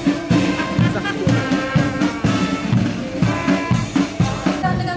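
Police marching band playing a march: snare and bass drums beating about twice a second under brass and a held low note.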